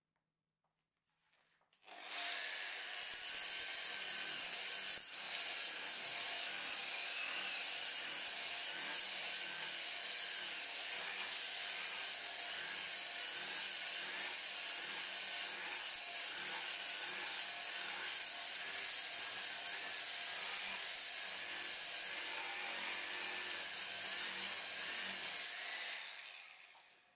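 Angle grinder with a sanding disc starting up about two seconds in and sanding wood: a steady motor whine over the rasp of the abrasive on the wood, winding down near the end.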